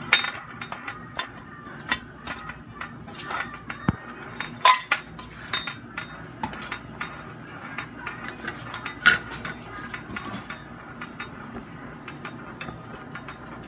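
Irregular clicks and clinks of kitchen utensils and items being handled on a counter, a few sharper knocks among them.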